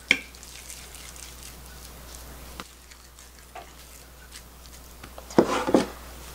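Soft handling sounds of hands rolling minced pork-and-tofu patty mixture into balls, with a light knock at the start. Near the end come two louder scrapes as the glass baking dish of flour is gripped and moved on the table to coat the balls.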